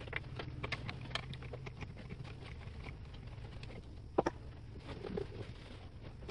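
Small clicks and taps of an electric skateboard's wheel, belt guard and hand tools being handled on a wooden workbench, with one sharper knock about four seconds in.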